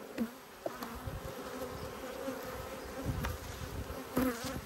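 A honeybee colony buzzing steadily over an open hive box of frames, a sustained drone, with a few light knocks from the frames being handled. The bees are agitated and defensive after rough handling.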